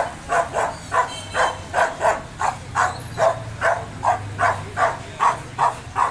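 A dog barking aggressively in a fast, even run of short barks, about three a second.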